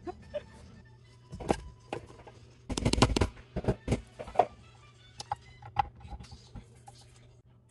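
A run of sharp knocks and clatter against a stainless steel stand-mixer bowl as flour is tipped in from a cup and brushed off the dough hook, loudest in a quick cluster about three seconds in. Quiet background music plays under it.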